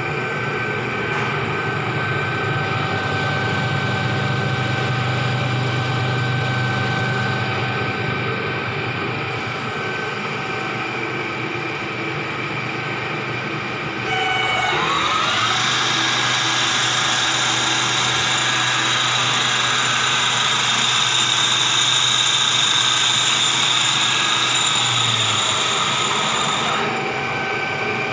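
Ward 3DB capstan lathe running with a steady mechanical hum and whine. About halfway through a whine rises in pitch and the machine gets louder and hissier, then it drops back to the quieter running sound near the end.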